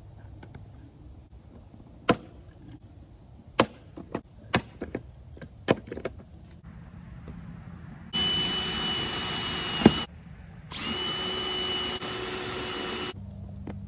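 Cordless drill running, drilling into the camper's wood wall panel in two runs of about two seconds each, with a high steady whine and a sharp click as the first run stops. Before that, a few sharp knocks and clicks from handling parts at the panel.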